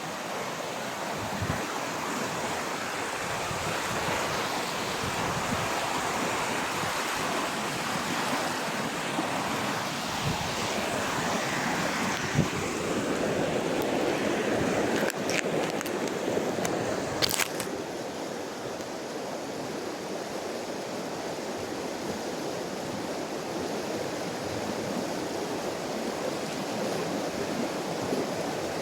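River water flowing over rocks, a steady rushing noise, with some wind on the microphone. A few brief clicks come about halfway through.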